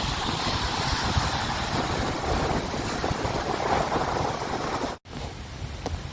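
Wind buffeting the microphone in a low rumble over the wash of Lake Michigan waves. About five seconds in the sound cuts out for an instant, then goes on a little quieter.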